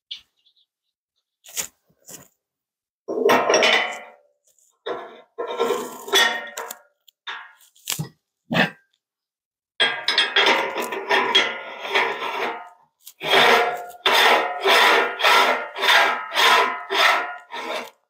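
Metal parts of a LEM Big Bite #32 meat grinder head clattering and scraping as the head is taken apart with the motor off, to change the grinding plate. The strokes are scattered at first, then come as a run of about two a second toward the end.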